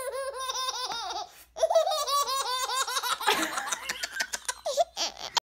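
Baby laughing hard in a quick run of short, high-pitched ha-ha pulses. The laughter pauses briefly about a second and a half in, comes back louder, and cuts off suddenly near the end.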